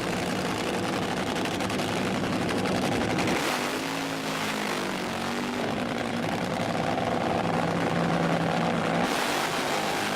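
A motor vehicle running, with a steady rush of wind or road noise over the engine note. The engine note changes pitch about three and a half seconds in and again near the end.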